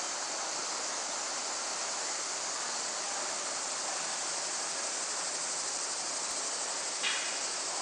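Steady, even rushing of a shallow creek running over a stony bed.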